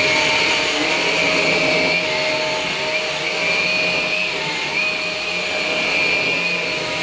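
Numatic Hetty Quick cordless stick vacuum running as it is pushed over carpet: a steady, loud motor whine over a rushing hiss, its pitch dipping slightly now and then.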